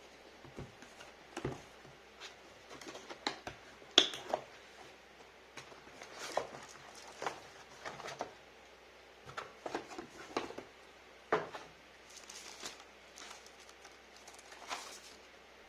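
Hands handling an item and its packaging: irregular taps, knocks and rustles, with one sharper knock about four seconds in.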